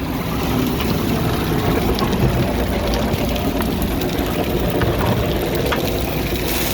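A motor or engine running steadily, with a few faint clicks and rattles over it.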